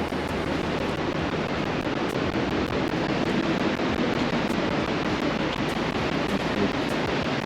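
Steady rush of ocean surf, an even wash of waves with no distinct breaks.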